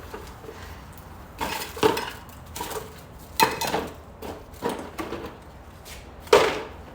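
Hard clicks, clinks and knocks of parts and tools being handled, about six separate impacts spread over the seconds, the loudest near the end.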